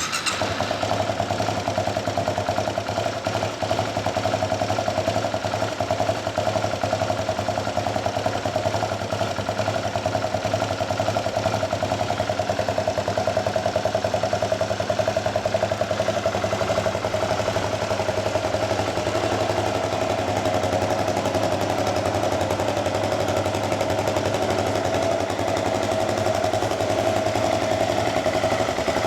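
Yamaha WR250X 250 cc single-cylinder four-stroke engine idling steadily through an aftermarket DELTA Barrel 4 silencer with a Powerbox pipe. It comes in suddenly at the start and then runs at an even idle.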